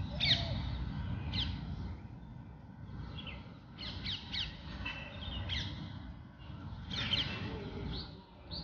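Birds calling outdoors: short, sharp chirping notes in repeated clusters, over a steady low background rumble.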